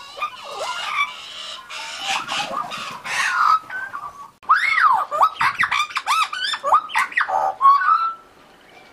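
Australian magpies calling: scratchy squawks for the first few seconds, then a run of warbling, fluting notes that rise and fall, stopping shortly before the end.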